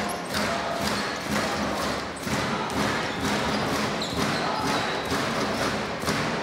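Basketball dribbled on a hardwood court, a run of thuds at fairly even spacing, over the steady noise of an arena crowd.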